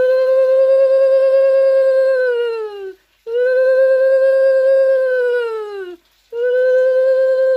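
Conch shell (shankha) blown three times at the close of a puja. Each blow is one long, steady note of nearly three seconds that drops in pitch at its end, with short breaks between the blows. The third is still sounding at the end.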